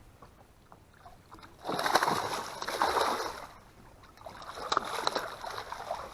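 Water splashing in two bouts, a loud one starting nearly two seconds in and a weaker one about four seconds in: a hooked largemouth bass thrashing at the surface as it is brought in.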